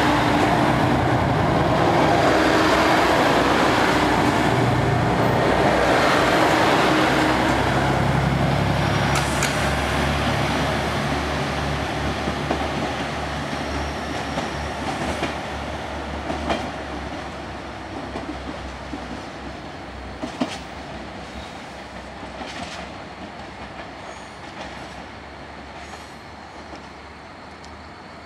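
An eight-car JR Shikoku 2000 series diesel multiple unit pulling out past the platform: engines running under power and wheels rumbling on the rails, loud at first, then steadily fading as the last car pulls away. Scattered sharp clacks of the wheels over rail joints and points sound from about a third of the way in.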